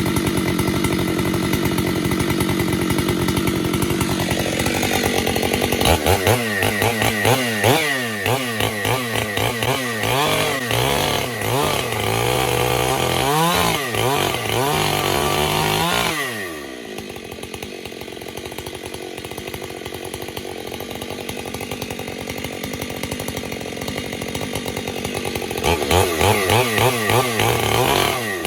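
Two-stroke chainsaw, its chain fitted backwards, running fast at first. It is then revved up and down over and over. About sixteen seconds in it drops back to idle, and near the end it is revved again.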